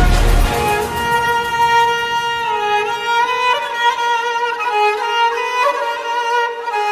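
Instrumental ringtone music: a violin plays a slow melody of long held notes. The deep bass beat under it cuts out about half a second in.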